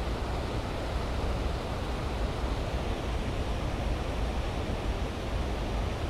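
Steady rushing of water pouring through a lake spillway, an even roar heaviest in the low end.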